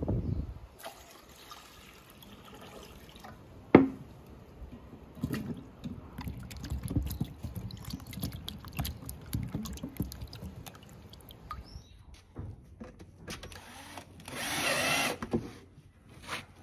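A sharp knock a few seconds in. Then water sloshing and splashing as hands wash peeled onions in a bowl of water. Near the end a cordless drill runs briefly, for about a second and a half.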